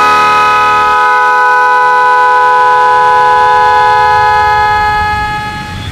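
Electric snail horn (klakson keong), wired through a push-on switch straight to a 12 V battery, sounding one loud continuous blast of about six seconds that starts suddenly and cuts off at the end. The steady tone shows the freshly wired horn working.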